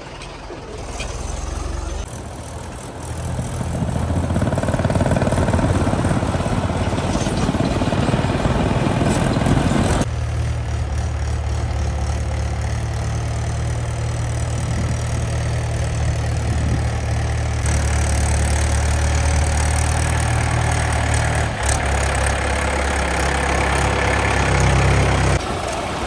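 Diesel tractor engine running steadily, its sound changing abruptly in tone and pitch three or four times.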